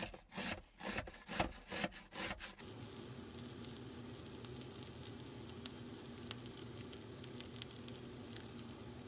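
Potatoes being grated by hand: about eight quick rasping strokes over the first two and a half seconds. Then grated potatoes frying in a pan, a steady sizzle with faint scattered crackles.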